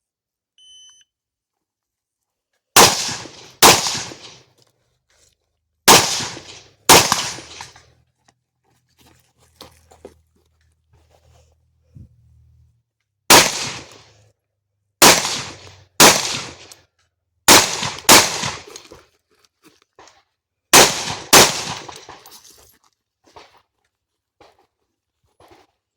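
A shot timer gives a short beep, then a semi-automatic rifle fires about eleven shots, mostly in quick pairs about a second apart, with pauses of a few seconds between groups.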